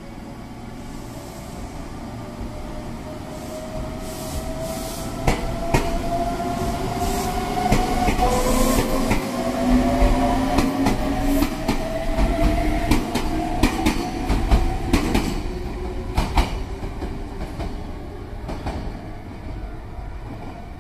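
Meitetsu 3700 series electric train pulling away from a station: its motor whine climbs slowly in pitch in several tones as it speeds up, while the wheels click over the rail joints. It is loudest as the cars pass, about halfway through, then fades as the train draws away.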